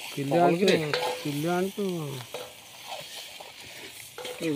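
Meat frying in masala in a metal pan while a ladle stirs and scrapes it, with a steady sizzle. In the first two seconds several wavering, sliding pitched sounds stand out over the frying.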